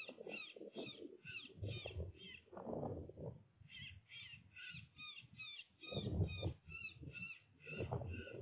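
Predator caller playing a run of repeated high, crow-like cries, about three a second, pausing briefly near the middle before starting again. Low rumbling noise runs underneath.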